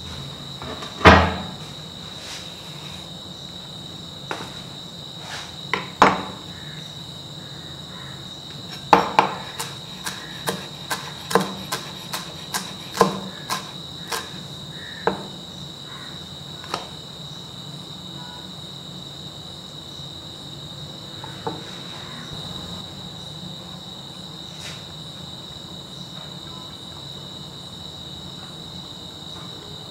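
Damascus chef's knife chopping coriander on a wooden cutting board: scattered sharp knocks, then a quick run of chops about two a second from around nine to fourteen seconds in, a few more after, and none in the last third. A steady high-pitched tone runs underneath throughout.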